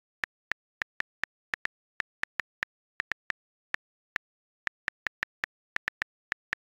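Key-press clicks from the Gboard on-screen keyboard, one short, sharp click per tapped key, about two dozen at an uneven typing pace. They come straight off the device's own audio, with dead silence between the clicks.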